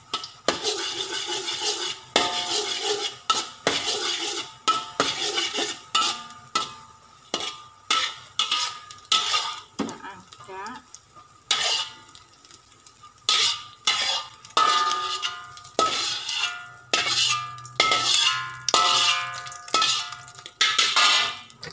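A metal spatula scraping and clanging against a large metal wok as eggs are stir-fried and broken up in oil. The strokes come in quick, irregular strikes, many of them ringing briefly in the wok.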